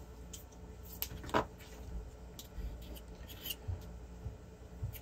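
A few light clicks and faint rubbing from a tube of dried-out thermal compound and the plastic BMS case being handled, as the grease is worked onto the FET heatsink; the sharpest click is about a second and a half in, over a low steady hum.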